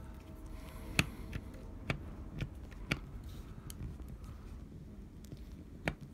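Faint handling sounds of a small butane torch being put back together: a few light clicks and taps of metal parts as the chrome nozzle cover is fitted onto the torch head by hand, the sharpest about a second in and another near the end.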